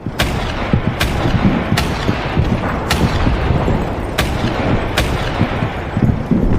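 Type 97 revolver firing six single shots at uneven intervals of about a second, each a sharp crack, over a steady low rumble of background noise.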